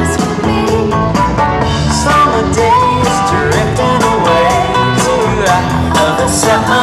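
Loud music with a singing voice and a steady drum beat.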